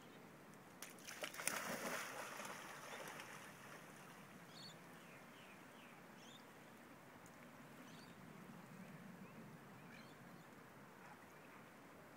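A dog plunging off a rock into a river, with a splash about a second in that fades over the next second or two. Faint water sounds follow as it swims away.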